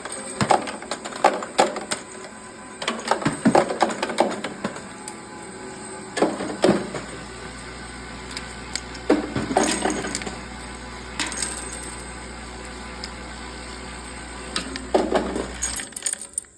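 Live cartridges clinking and rattling in irregular clusters as they tumble through a roller-type ammunition sorter, over a steady low motor hum. The hum stops shortly before the end.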